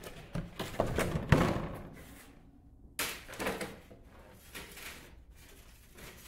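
Thin clear plastic humidity domes being handled and pressed onto black plastic seed trays: plastic crinkling and clattering, with one sharp knock just over a second in and another burst of rustling about three seconds in.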